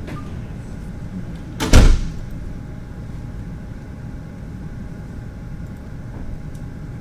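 A single loud thump a little under two seconds in, over steady low room noise.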